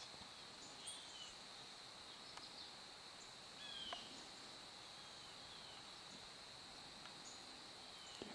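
Faint evening insect chorus, a steady high-pitched trill, with a few short, faint, downslurred bird chirps.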